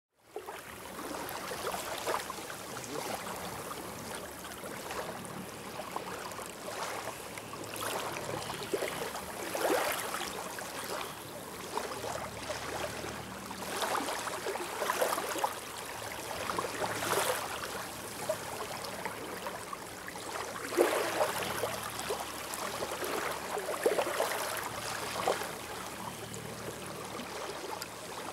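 Shallow water lapping and trickling in a steady wash, with small splashes every few seconds.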